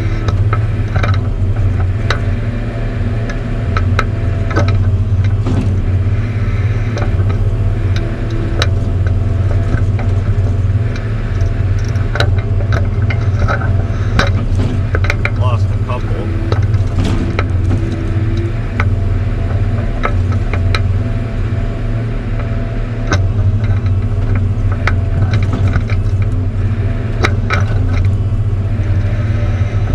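Log loader working, heard from inside the cab: its engine runs with a steady low drone, with scattered clicks and knocks from the machine's moving parts throughout.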